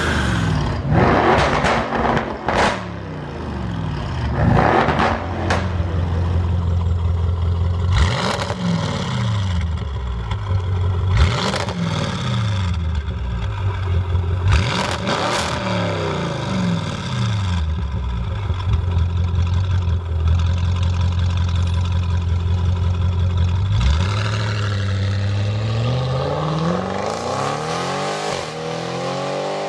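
Audi RS6 Avant's twin-turbo V8 revved repeatedly while standing, the pitch climbing and falling with each blip and sharp cracks and pops from the exhaust between revs. Near the end the engine note rises steadily as the car accelerates away.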